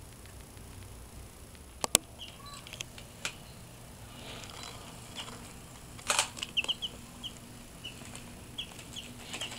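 Domestic chicks peeping: short, high cheeps scattered through, coming more often in the second half. Sharp clicks and taps break in, loudest just before two seconds in and again around six seconds in.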